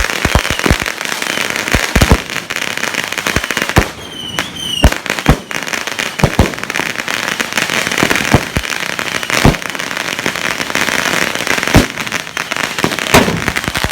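Firecrackers and consumer fireworks going off: a dense crackle punctuated by many sharp, irregular pops.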